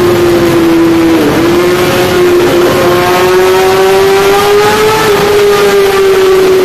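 Yamaha YZF-R6 sport bike's inline-four engine running at steady high revs under way, heard from the rider's seat. Its pitch dips briefly about a second in, then climbs slowly. The sound carries a tunnel's echo.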